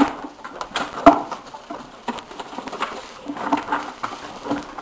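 A spoon stirring a pot of cooking rice, knocking against the pot now and then, with the sharpest knock about a second in.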